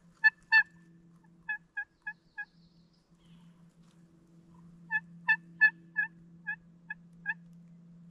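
Turkey call sounding hen yelps in short runs: two loud notes at the start, four softer ones a second or so later, then a longer run of about eight evenly spaced notes that fade toward the end, calling to draw in a gobbler.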